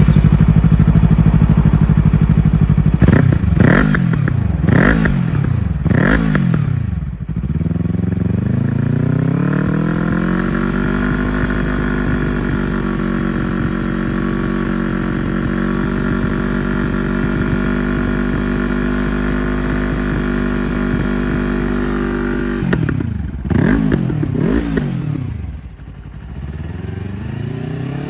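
Yamaha YZF-R3 / MT-03 321 cc parallel-twin engine running through an Arrow Pro-Race slip-on silencer. It is held at raised revs, then blipped sharply about four times. It climbs slowly to a steady held rpm for about ten seconds, is blipped quickly three more times, and drops back toward idle near the end.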